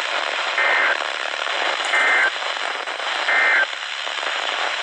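Three short warbling data bursts of the EAS/SAME end-of-message code, about a second and a half apart, over steady radio static on a weather-radio broadcast. They mark the end of the warning message.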